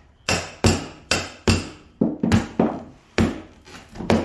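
Hand hammer striking repeatedly: about ten sharp blows in two runs, with a short pause a little before two seconds in.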